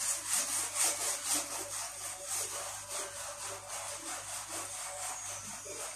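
Brisk, rhythmic scrubbing or brushing strokes, about four a second, rubbing a surface during floor cleaning.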